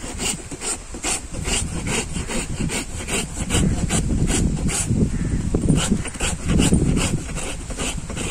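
Farrier's hoof rasp filing a horse's hoof in steady back-and-forth strokes, about two a second.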